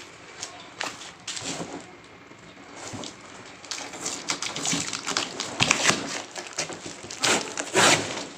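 Packaging of a boxed stand fan being handled: irregular rustles, scrapes and knocks of cardboard and plastic wrapping, growing busier and louder about halfway through.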